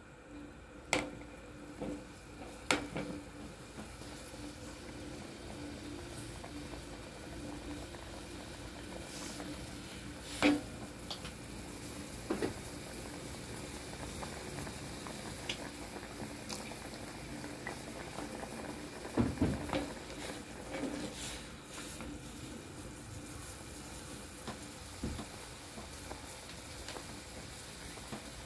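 Beef jungle curry boiling in an aluminium pot, bubbling steadily. A metal ladle stirring it knocks sharply against the pot now and then, loudest about ten seconds in and again near twenty seconds.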